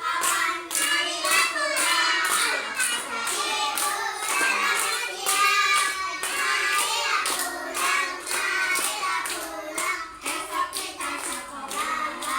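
Young children singing a song together in unison, clapping along in time at about two claps a second.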